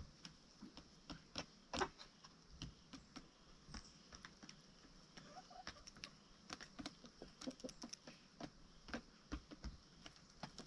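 Chickens pecking and scratching: an irregular run of soft, sharp taps, the loudest a little under two seconds in.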